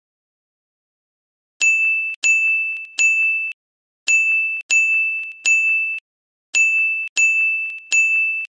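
Sparkle sound effect: a high-pitched ding-like chime struck nine times in three quick groups of three, each note ringing briefly and then cut off short.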